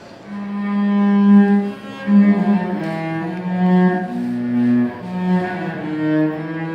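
Solo cello playing a slow melody of long, bowed, held notes, starting just after the opening. It is the instrumental opening before the voice comes in.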